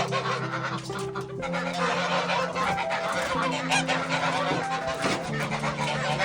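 A flock of farm poultry calling and honking, over background music with long, held notes.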